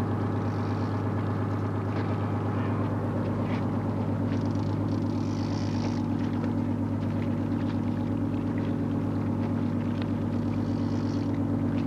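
A fishing boat's engine running steadily, a constant low drone that holds the same pitch throughout.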